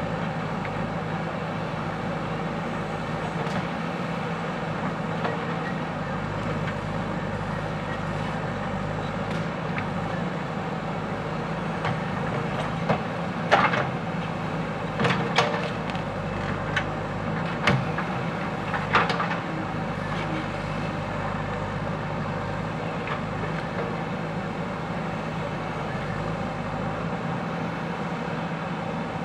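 JCB 3DX backhoe loader's diesel engine running steadily under work, with a cluster of sharp metallic clanks and knocks about halfway through.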